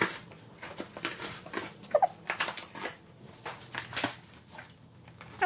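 A dog ripping and chewing apart a cardboard box: repeated sharp tearing and crinkling of cardboard, with one brief whine about two seconds in.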